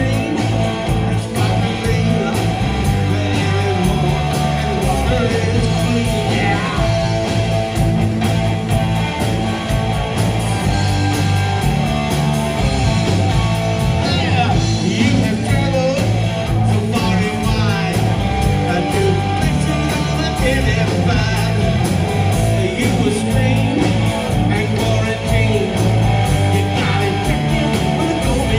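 Live rock band playing: electric guitars over a steady drum kit beat, with a male voice singing.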